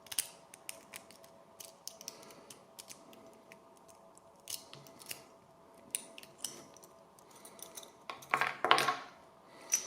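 Lock pick raking the pin stack of a brass Smith & Locke shackle padlock: irregular small metallic clicks and scrapes, with a louder burst of scraping and rattling about eight seconds in.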